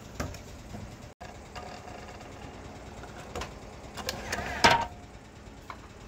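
Handling noise at a compound miter saw: scattered clunks and taps as a small wood block is moved against the saw's metal table and fence, with a cluster of louder knocks about four to five seconds in.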